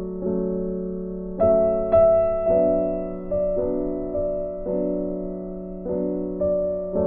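Background music: slow piano playing held chords, a new chord or note struck about once a second, with a louder strike a little under two seconds in.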